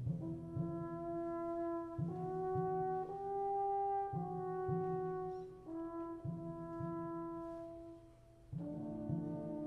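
Student symphony orchestra playing slow, held chords with the brass prominent, the harmony changing about every two seconds over short, repeated low notes. The sound thins out just before the end, and a fuller, louder chord then comes in.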